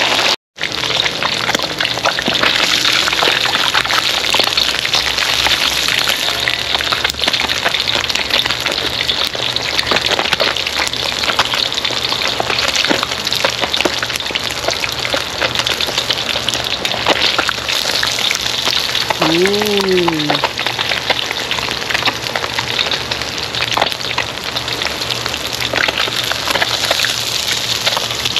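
Breaded sand dabs deep-frying in hot oil in a steel wok: a dense, steady sizzle and crackle.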